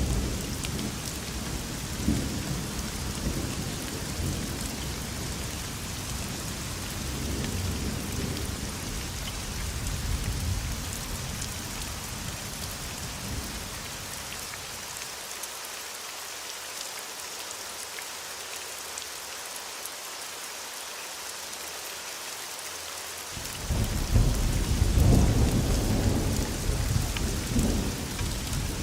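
Steady heavy rain hissing, with rolling thunder rumbling underneath through the first half. The rumble dies away for several seconds, leaving only the rain, then a fresh, louder clap of thunder breaks in about two-thirds of the way through and rolls on.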